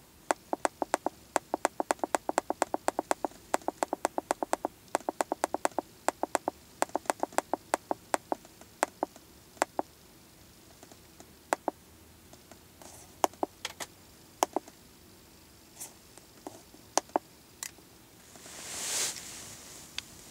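Rapid clicking of the Autel MaxiDiag Elite MD702 scan tool's keypad as its scroll button is pressed over and over, about four or five presses a second for the first eight seconds, then slower, scattered presses. Near the end a short hiss swells and fades.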